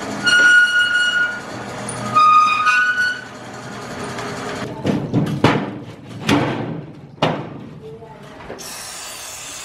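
Electric steel roller shutter opening with loud high-pitched squeals, two spells in the first three seconds, the noise of a shutter that has gone without maintenance. Several sharp hits follow between about five and seven seconds in.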